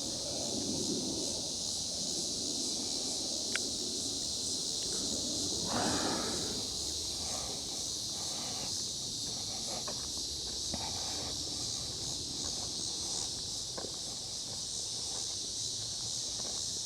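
Steady high-pitched insect chorus, with footsteps and light rustling along the trail; the rustling is strongest about six seconds in.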